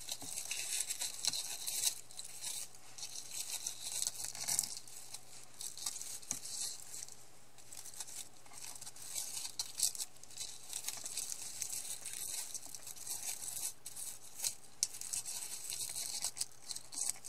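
Raffia ribbon rustling and crinkling as it is pulled through and tied into a knot around a paper card, an irregular scratchy rustle with small clicks.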